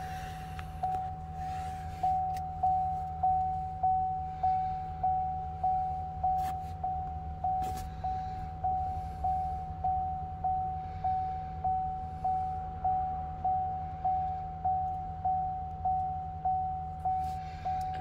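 Dashboard warning chime of a 2019 Chevrolet Silverado 3500 dinging over and over, about every 0.6 s, each ding one tone that fades out. The ignition is on and the engine is not running. A steady low hum sits underneath.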